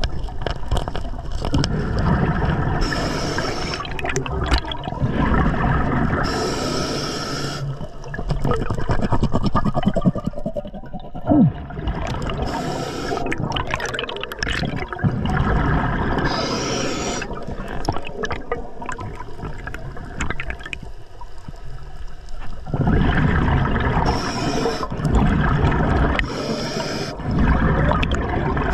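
Scuba diver breathing through a regulator underwater: a rush of exhaled bubbles every few seconds, with lower water rumble between breaths.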